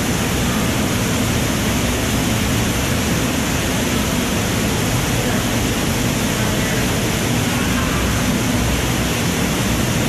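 Waterfall in a cave pouring down the rock into a pool: a steady, loud rush of water.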